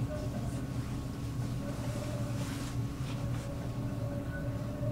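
Tram running along its line: a steady low hum of motors and running gear with a faint higher whine that comes and goes.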